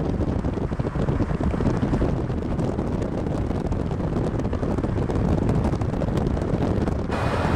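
Covered hopper cars of a freight train rolling past on the rails, with heavy wind buffeting the microphone. The sound changes abruptly near the end.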